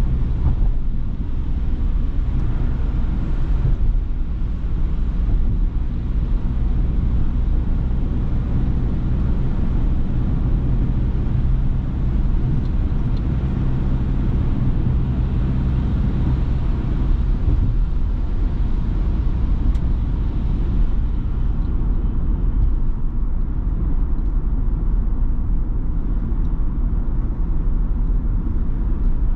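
Ford Transit Custom diesel van driving through heavy rain: a steady low engine and road drone under a continuous hiss of rain and wet tyres. The higher hiss thins out about two-thirds of the way through.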